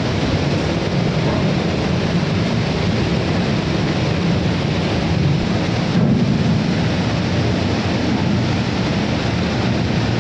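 Heavy water rushing out of a dam in flood, a loud, steady, unbroken rush with a deep low rumble, shifting slightly about six seconds in.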